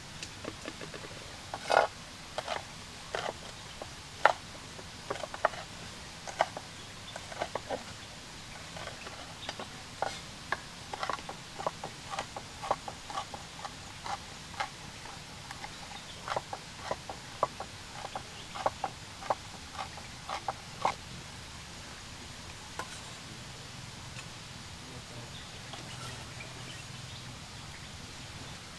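Cleaver chopping chilies on a wooden cutting board: a run of sharp, irregular knocks, a few a second, that stops about two-thirds of the way through. There are also a few clicks of a spatula against a frying pan.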